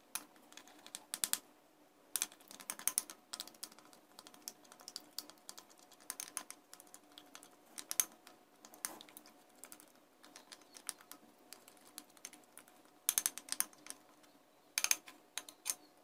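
A spoon stirring egg yolk and yogurt in a glass dish, clinking and scraping against the glass in irregular runs of quick clicks.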